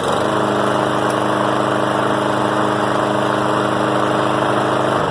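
Walk-behind lawn mower's 163cc Briggs & Stratton single-cylinder engine running steadily, moments after starting on the first pull of a new mower. It begins to wind down in pitch right at the end as it is shut off.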